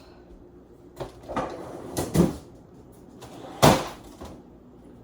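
A handful of separate household knocks and clunks, the loudest about three and a half seconds in.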